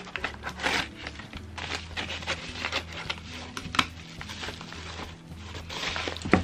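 Scissors snipping through a padded paper mailer, then the paper envelope crinkling as it is pulled open and a hand reaches inside, in short sharp rustles with one loud one near the end. Background music with a steady bass line plays underneath.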